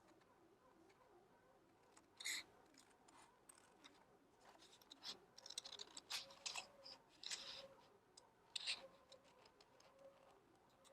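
Scissors snipping paper, faint short cuts at irregular intervals, as a small heart shape is cut out.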